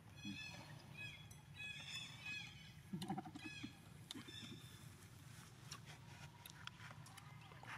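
Baby macaque squealing: a quick series of short, high squeaks that rise and fall, over the first three and a half seconds. A few soft clicks and rustles follow.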